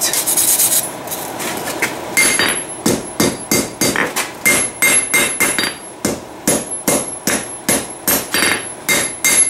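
Hand hammer striking red-hot file steel on an anvil to forge it into a blade. The blows ring, a few at the start, then a steady run of about three a second from about two seconds in.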